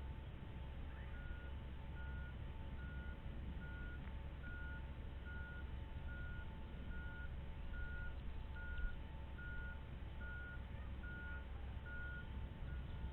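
Two overlapping series of steady, evenly spaced beeps at different pitches, each repeating a little faster than once a second, over a low rumble.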